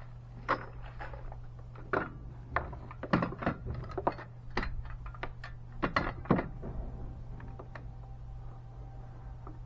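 A run of irregular knocks and thuds on wood, about a dozen sharp strikes in the first six seconds or so, then they stop.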